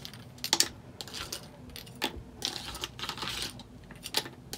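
Plastic spoon clicking and scraping on a paper plate as goldfish crackers are scooped up and dropped into a plastic cup: a handful of separate light clicks, with a short scrape in the middle.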